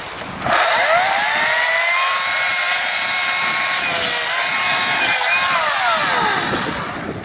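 Ryobi 40-volt brushless battery chainsaw spinning up about half a second in, then running with a steady electric motor whine as it cuts limbs off a felled spruce. Its pitch dips briefly under load in the middle and falls away as the trigger is released near the end.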